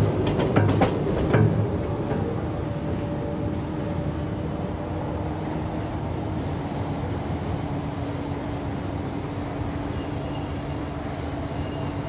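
A subway train car running, heard from inside the car. There are several sharp clanks and knocks in the first second and a half, then a steady rumble with a low hum, and faint wheel squeals near the end.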